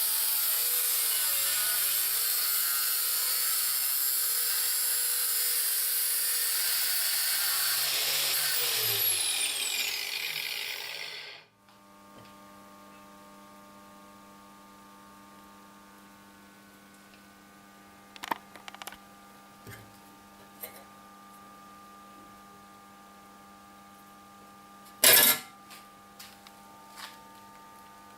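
Angle grinder running at full speed, then switched off about nine seconds in, its pitch falling as the disc winds down to a stop. Afterwards a low steady hum with a few scattered clicks and one louder knock near the end.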